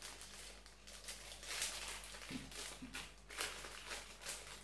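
Plastic wrap crinkling and rustling in the hands as a ball of fermented pork-and-cabbage mixture is wrapped tightly, in faint, irregular rustles about once a second.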